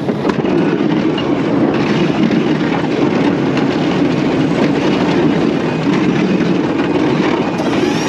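2019 Ford F-250 pickup, 6.2-litre V8, with a Boss V-plow moving through snow: a steady, loud rushing mix of engine, tyres and the plow blade pushing snow.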